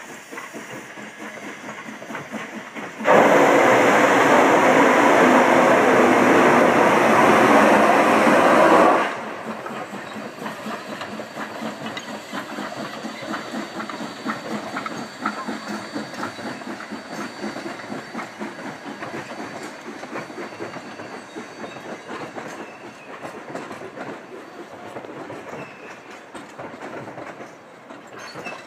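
Steam locomotive No. 464 lets out a loud hiss of steam about three seconds in, held for about six seconds and cut off suddenly. Then the passenger coaches roll over the wooden trestle with a steady clickety-clack of wheels on the rail joints.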